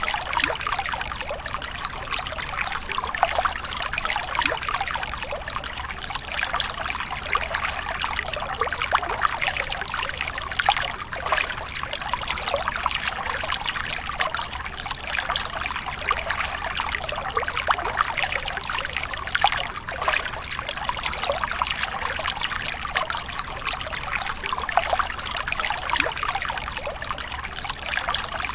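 Small stream of water trickling over a mossy rock ledge into a shallow pool: a steady trickle with many small splashes.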